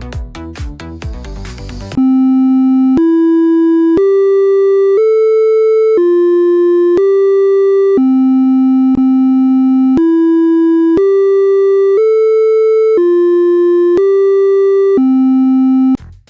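Electronic dance music briefly, then a slow, loud melody of plain buzzy synthesizer beeps, one note a second, climbing and falling through four notes (C, E, G, A) twice over, like an old computer or toy keyboard tune.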